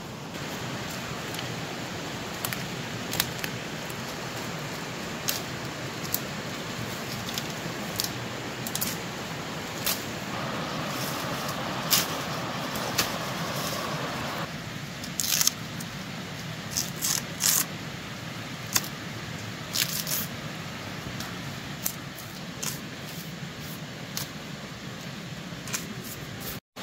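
Bamboo stems and undergrowth being cut with a knife: irregular sharp snaps, cracks and chops over a steady rustle of leaves and stalks.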